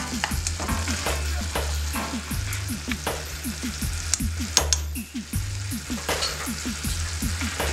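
Chicken pieces sizzling in a pan of lemon juice and pan juices while being stirred, the utensil knocking and scraping against the pan now and then. A steady low hum runs underneath.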